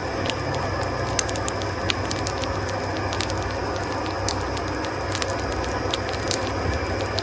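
Wood pulp molding machine running: a steady low hum from its geared motor as the engraved metal roller turns, with many irregular sharp clicks and ticks.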